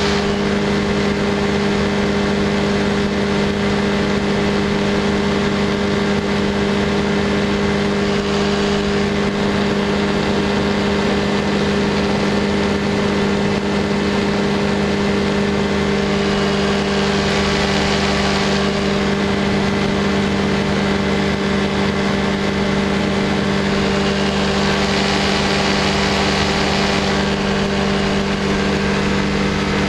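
Light aircraft's engine running steadily in flight at an even pitch, heard from on board. Rushing airflow noise swells twice, around the middle and again later.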